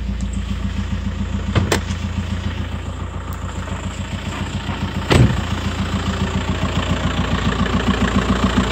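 Audi allroad's swapped-in 2.0 TDI four-cylinder diesel idling with a steady, even clacking, louder toward the end. Two short clunks cut across it, the louder about five seconds in, as the car door is opened and shut.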